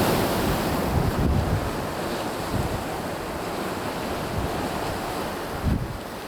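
Sea of Japan surf washing against the shore, with wind gusting across the microphone in low thumps; the sound fades down near the end.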